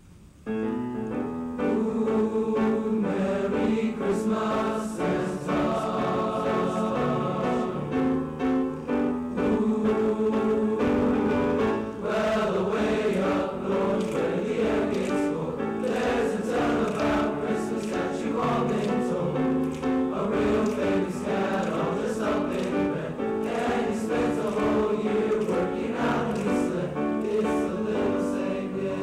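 A junior high school choir singing a piece in several parts, coming in about half a second in after a quiet moment.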